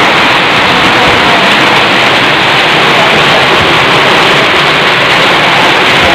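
Heavy rain pouring down, a loud, steady hiss with no letup.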